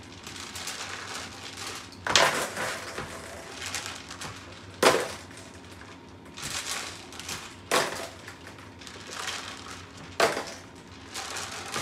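Marbles dropped one at a time from the mouth into a plastic bowl, each landing as a sharp clack with a short rattle, four times in a few seconds, with water splashing in the tub between drops.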